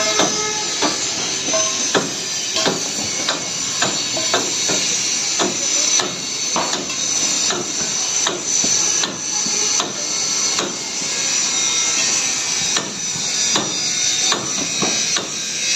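Hammer strikes repeated at an irregular pace, about one or two a second, over a steady high hiss.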